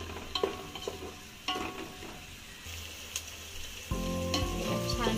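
Chopped onions frying in oil and butter in an aluminium pot, sizzling, while a wooden spatula stirs them and taps against the pot several times. The sound gets louder about four seconds in.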